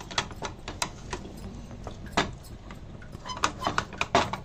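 Wooden spatula knocking and scraping against the pan while stirring a thick milk-powder peda mixture, with irregular clicks several times a second.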